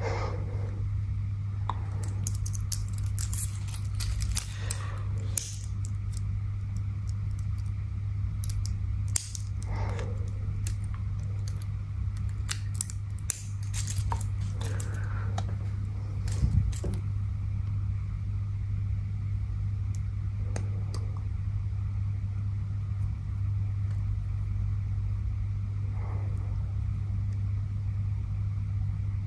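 Two-tone metal link bracelet of a Citizen automatic watch jingling and clinking, its clasp clicking, as the watch is taken off and handled. The clinks are bunched in the first half, with only a few faint ones later. A steady low hum runs under it.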